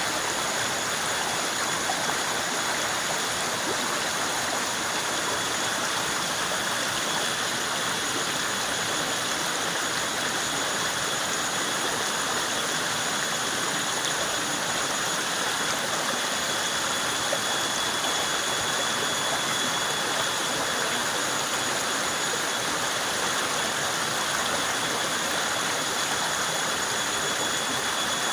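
A shallow stream flowing steadily over stones, running without a break.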